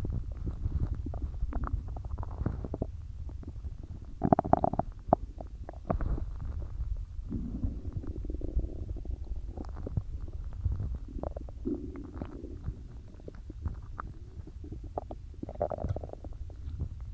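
Human stomach gurgling from a belly filled with soda and swallowed air. A steady low rumble runs throughout, with many small clicks and several longer gurgles; the loudest gurgle comes about four seconds in, and others follow around eight, twelve and sixteen seconds.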